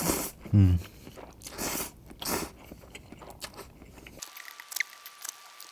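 Close-miked eating of sauced instant fried noodles (Indomie Mi Goreng): several short, wet slurps as noodles are sucked into the mouth, with chewing in between. It is quieter near the end.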